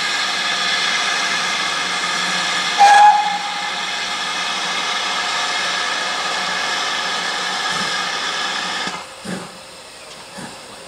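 A GWR Manor-class steam locomotive standing still and releasing steam in a loud, steady hiss for about nine seconds, which cuts off abruptly. About three seconds in there is a brief, sharper spike with a short tone.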